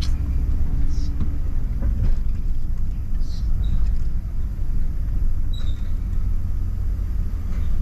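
Pickup truck running at low speed, a steady low rumble heard from inside the cab, with a few brief faint high chirps.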